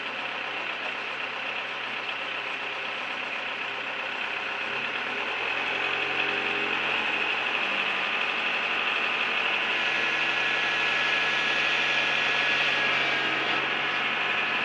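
A combine harvester's diesel engine running, picking up speed and getting louder about five to six seconds in as it works its way down off the truck.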